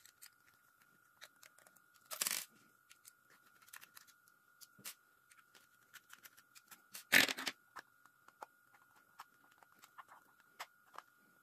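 Small clicks and scrapes of a Wahl Cordless Senior hair clipper being handled and taken apart by hand, with two louder rasping scrapes about two and seven seconds in. A faint steady high tone runs underneath.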